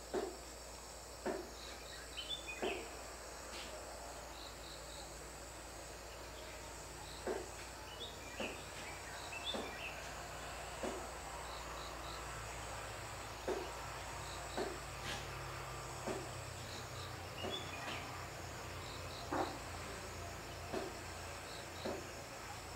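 Crickets chirping in short groups of two or three high pulses over a steady low hum. About a dozen short dull knocks come at irregular intervals and are the loudest sounds.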